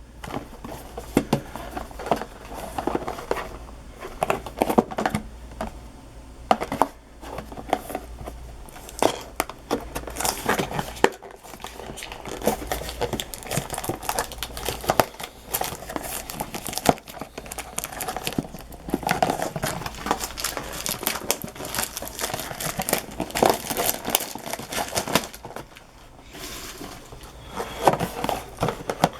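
Plastic and foil wrappers crinkling and tearing as a trading-card blaster box and its packs are unwrapped by hand, in uneven spells of rustling.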